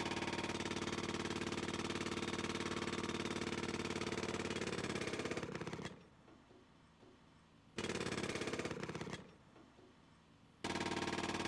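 Handheld demolition hammer with a chisel bit chipping into the tunnel's concrete and rock sidewall to break through it. The hammering is rapid and continuous, and it stops twice: for about two seconds starting about six seconds in, and again for about a second and a half starting about nine seconds in. Each time it starts up again.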